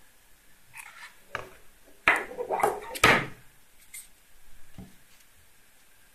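Handling noises as a white cardboard box and a Bluetooth speaker are slid apart and set down on a table: a few short scrapes and knocks, the loudest about two and three seconds in.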